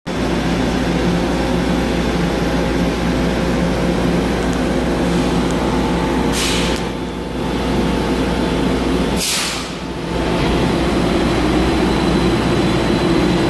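Steady hum of an MBTA Silver Line electric bus standing at the platform, broken twice by a short hiss of air, about six and nine seconds in.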